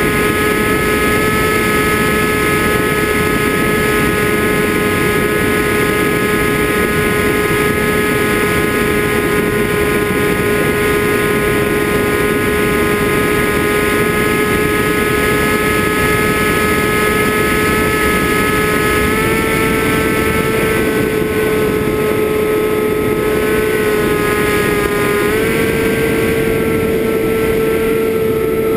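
FPV drone's motors and propellers whining at a steady pitch over a constant rush of air. The pitch steps up slightly twice in the latter part.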